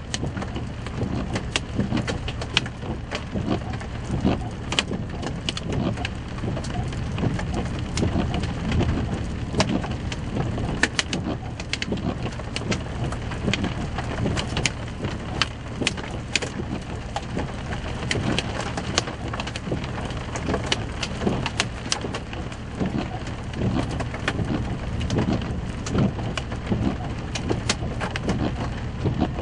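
Rain hitting a storm chasers' truck: many irregular sharp taps of drops, several a second, over a steady low rumble.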